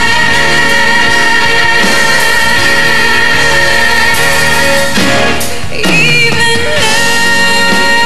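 Live pop ballad with female lead and backing vocals over a band: the singers hold a long final note with sustained chords, which ends about five seconds in. A solo female voice then starts a new song over soft accompaniment.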